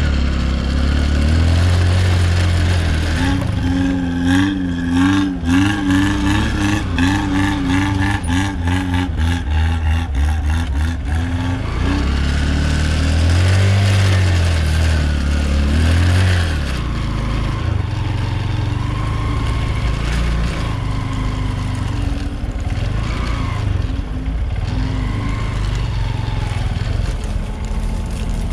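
Off-road 4x4 engine revving hard in quick repeated throttle pulses, with clattering, as the vehicle works through the trail, swelling again after about fourteen seconds. In the second half it settles to a steadier, lower run.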